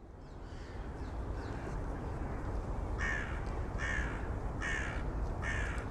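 City park ambience: a steady low rumble of distant traffic under a crow cawing four times, evenly spaced, starting about three seconds in. Faint small-bird chirps come near the start as the sound fades in.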